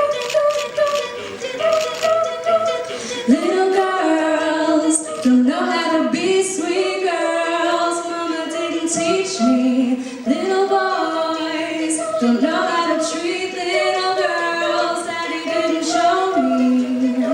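Mixed a cappella group singing: backing voices hold chords while vocal percussion (beatboxing) clicks and taps at intervals. A stronger lead voice enters a little over three seconds in.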